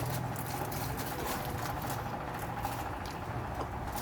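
Faint chewing of a mouthful of chicken burger, with small scattered clicks, over a steady low room hum.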